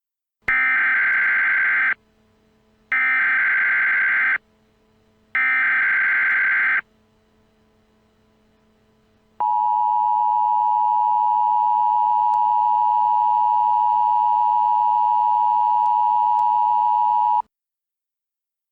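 Emergency Alert System tones. First come three SAME header data bursts, each about a second and a half of harsh digital chirping. A couple of seconds after them, the two-tone EAS attention signal sounds, a steady dual-pitch tone held for about eight seconds before it cuts off suddenly.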